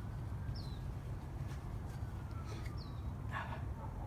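Outdoor background: a bird giving a short, high, falling chirp every second or two over a steady low rumble, with a faint far-off siren slowly rising and falling, and a few light clicks.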